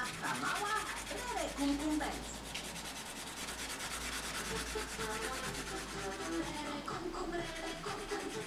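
Colored pencil shading on paper: rapid back-and-forth scratching strokes as the pencil lead rubs across the sheet.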